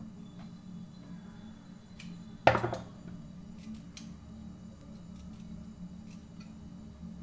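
Small clicks and taps of hand food preparation over a plastic container, with one sharp clatter about two and a half seconds in, over a steady low hum.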